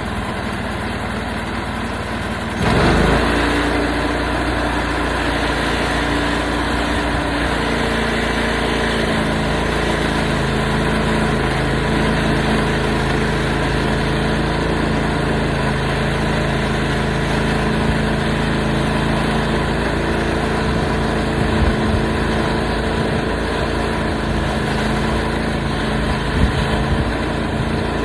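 Portable sawmill's engine running steadily at a low speed, then speeding up and louder from about three seconds in, holding that higher speed with a couple of small knocks later on.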